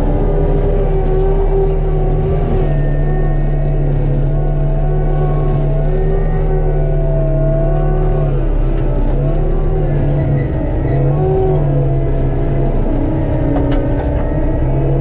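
ASV RT-75HD compact track loader's diesel engine and hydraulics running hard, driving a Denis Cimaf 150D forestry mulching head. A steady low drone, with a higher whine that wavers up and down as the load on the mulcher changes, and a couple of brief sharp clicks near the end.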